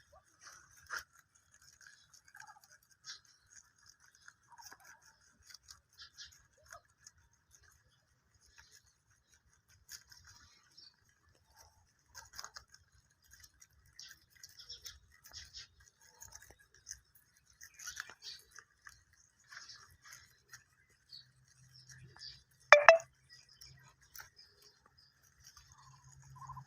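Rabbits chewing and tearing grass: soft, irregular crunching clicks. One brief, loud, sharp sound comes about 23 seconds in.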